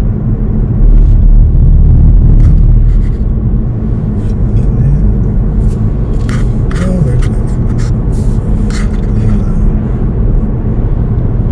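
Car driving on a paved road: a steady, loud low rumble of tyres, engine and wind, with a handful of short sharp ticks about halfway through.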